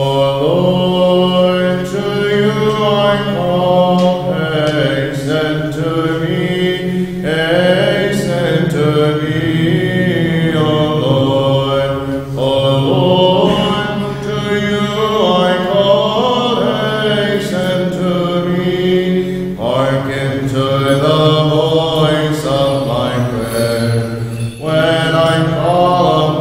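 Men's voices chanting a Byzantine hymn in unison. The melody moves in long, drawn-out phrases over a steady low held drone note, with short breaths between phrases every few seconds.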